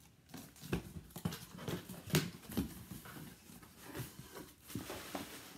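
Cardboard box being opened and handled: irregular rustling, scraping and knocking with no steady rhythm.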